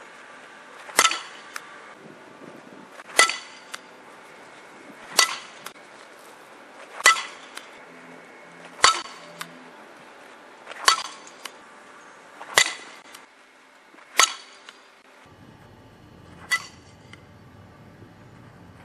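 A fastpitch softball bat hitting soft-tossed softballs: nine sharp, ringing cracks about two seconds apart, most followed a moment later by a fainter click.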